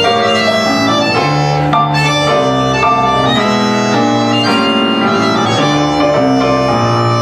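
Tango trio of piano, bandoneon and guitar playing an instrumental introduction: sustained reedy bandoneon chords over piano, moving from chord to chord.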